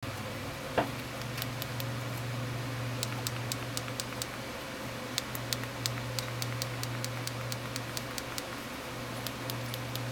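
A steady low hum with a scattering of small, sharp clicks, about two or three a second, and one louder click near the start.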